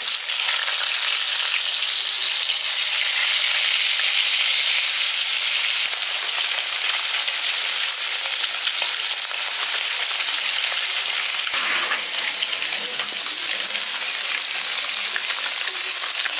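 Katla fish steaks frying in hot vegetable oil in a wok: a loud, steady sizzle.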